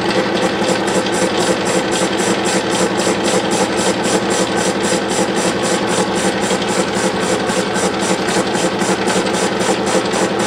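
Metal lathe running while a carbide tool faces off the end of a cast iron bar held in a steady rest: a steady machine hum with a rhythmic ticking about four to five times a second.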